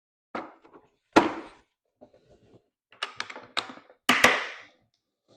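Handling knocks and clicks on a portable diesel heater and its remote control: a few sharp knocks, the loudest about a second in and just after four seconds, with a quick run of clicks around three seconds.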